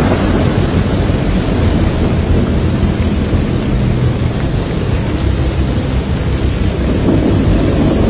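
Loud, steady storm noise of wind and rain with a deep low rumble, without distinct thunderclaps.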